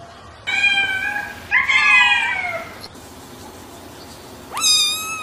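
Black kitten meowing three times: two calls close together, the second falling in pitch, then a higher call near the end.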